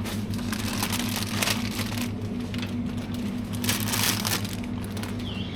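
Two stretches of rustling and crinkling over a steady low hum, the first about a second long near the start and the second shorter past the middle. A warbling electronic beep starts near the end.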